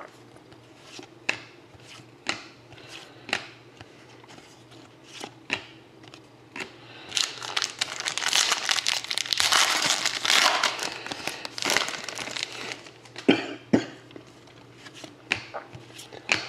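Sports cards being handled, with sharp snaps about once a second, then a dense stretch of crinkling and tearing in the middle as a 2013-14 Panini Contenders hockey card pack's wrapper is opened, followed by a few more sharp card snaps.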